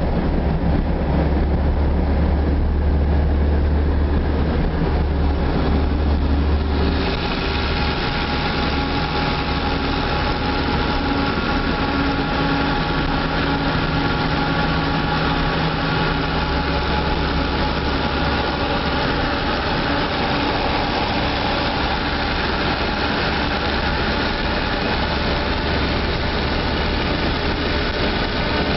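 Steady engine and road noise heard inside a 1957 Volkswagen Karmann Ghia at highway speed, with a strong low hum. About seven seconds in, a higher hiss of wind and tyres grows louder and stays.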